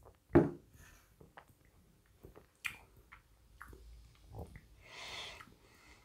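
Mouth sounds of a person tasting a sip of sour IPA: small wet lip smacks and tongue clicks, with one louder thump about half a second in and a soft breath out near the end.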